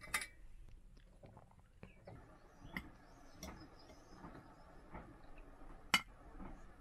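A fork clinking against a glass jar while oil-soaked cheese cubes are fished out onto a plate: a few light, sharp clicks over faint handling noise, the sharpest one near the end.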